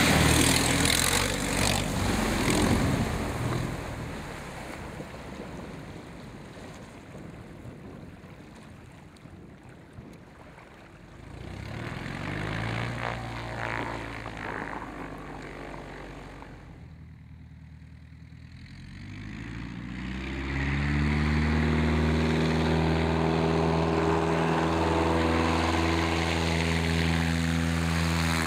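Ski-equipped Maule bush plane's engine and propeller while its skis hydroplane across water with a hiss of spray, loudest in the first few seconds and fading to a faint hiss. The engine is heard again briefly, and from about twenty seconds in a steady, close propeller drone holds loud.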